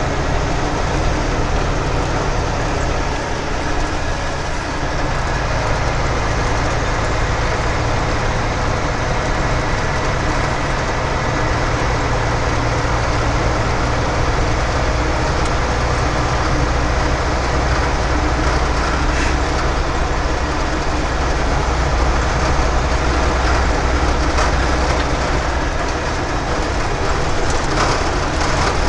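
Truck engine running steadily at highway speed, heard inside the cab, with a low drone under constant road and wind noise.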